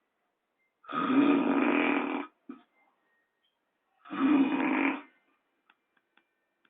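A person snoring heavily: two long, rasping snores about three seconds apart, each lasting over a second, with near silence between them.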